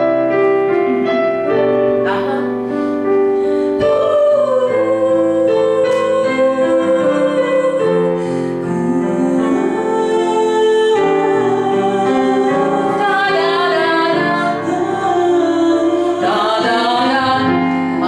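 A woman singing a slow ballad with digital piano accompaniment. The piano plays alone at first and the voice comes in about four seconds in. Later her held notes waver into vibrato.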